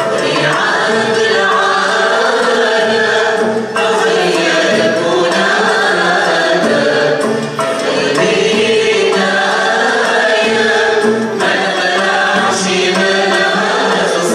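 Algerian Andalusi ensemble of ouds and violins playing, with several voices singing together in phrases of about four seconds, each followed by a brief breath-pause.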